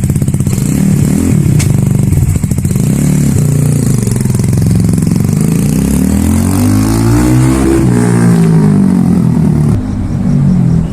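Italika Vortx 250 motorcycle engine revving through a Chinese-made aftermarket exhaust fitted with a dB killer. The revs rise and fall several times, with one longer rev that climbs and drops back past the middle.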